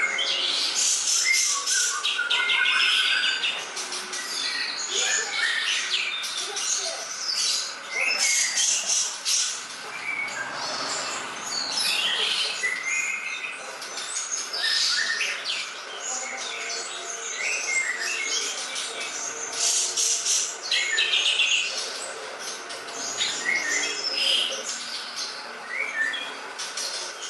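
Songbird singing a long, varied, high-pitched song of rapid chirps and trills, with hardly a pause.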